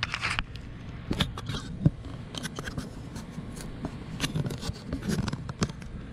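Irregular clicks, scrapes and light knocks of hardware being worked on an RV awning arm, the sharpest knock about two seconds in.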